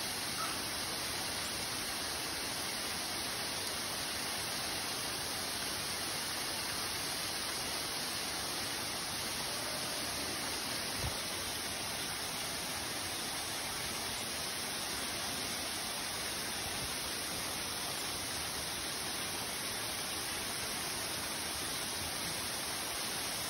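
Steady, even hiss that never changes, with one faint low thump about eleven seconds in.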